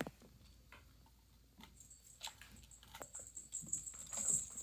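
Kittens moving about and eating at their food bowls on a plastic feeding tray: faint scattered clicks, taps and crunches.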